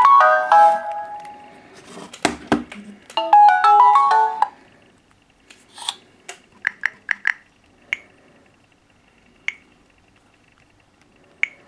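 Samsung Galaxy phone ringing with a melodic ringtone of quick, bright notes, broken by a few loud clicks about two seconds in. The melody stops about four and a half seconds in, followed by a scattering of light clicks.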